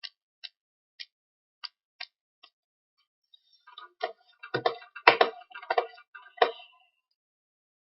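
Computer mouse clicking six times at an uneven pace, then a denser, louder flurry of clicks and taps from the mouse and keyboard lasting about three seconds.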